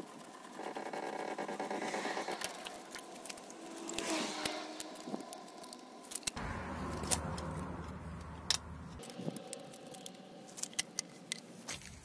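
Car's steel scissor jack being lowered and pulled out from under the car, with metal clicking and clinking as it is handled, and a squeaky creak near the start.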